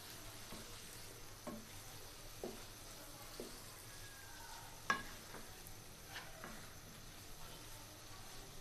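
A wooden spatula stirs chopped onions through a thick olive and hog-plum pickle paste frying in mustard oil in a nonstick pan, with a low, steady sizzle. The spatula knocks against the pan a few times, loudest about five seconds in.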